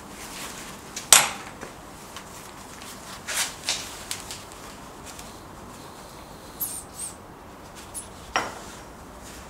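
Steel tooling being handled at a small power hammer's dies: scattered metal clinks and knocks as the die is worked loose by hand and a ratchet wrench is set against it. The sharpest clink comes about a second in, and there is a brief high squeak near the middle.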